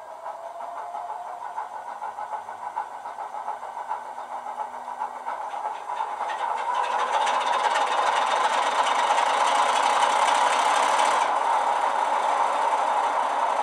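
DCC sound decoder playing a BR Class 33 diesel's Sulzer engine, heard through the model's small 27mm bass-enhanced speaker, running with the locomotive standing still. The engine sound grows louder over the first several seconds, then holds steady. A hiss joins about six seconds in and cuts off suddenly about eleven seconds in.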